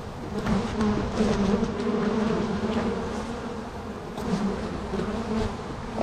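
Honeybees from an opened hive buzzing in a dense, steady hum that wavers in pitch. This is a large, more aggressive colony, stirred up as the hive is opened.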